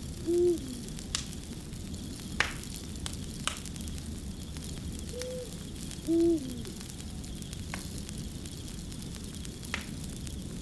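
Wood fire crackling steadily with occasional sharp pops. Two short, low hoot-like calls, each dipping at the end, come about half a second in and again about six seconds in; these are the loudest sounds.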